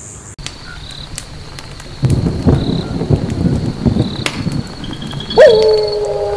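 Logo-intro sound effects: a low rumble with crackling and scattered clicks from about two seconds in, then a loud hit near the end that leaves a steady ringing tone.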